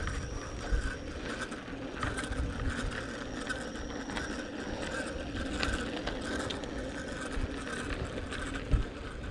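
A bicycle rolling steadily along a road, a continuous rolling noise with uneven low rumbling and faint scattered ticks.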